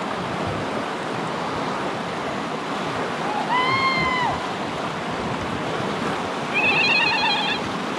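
River water rushing steadily through a class II rapid around the boat. Over it, a brief rising-and-falling high cry comes about halfway through, and a wavering high cry follows near the end.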